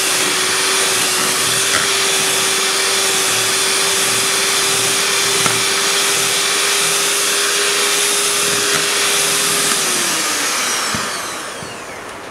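Vision electric hand mixer running at steady speed, its beaters whipping egg whites in a plastic bowl with a steady motor whine. About ten seconds in it is switched off and the whine falls in pitch and dies away as the motor winds down.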